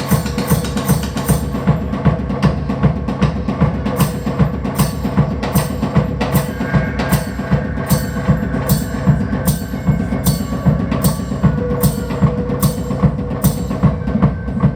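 Live music: a steady pattern of sharp, woodblock-like clicks, about two or three a second, over a dense, pulsing low bass.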